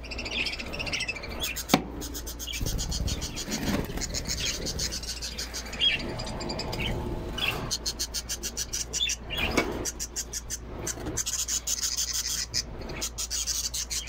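Scraping, rubbing and light knocking of a phone being pushed against and into a wooden nest box, with small cage birds chirping in the aviary.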